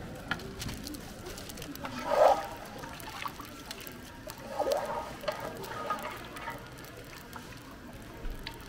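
Brown liquid sloshing in a large steel pot as it is stirred with a plastic spatula, with scattered light clicks and taps. It swells louder about two seconds in and again near the middle.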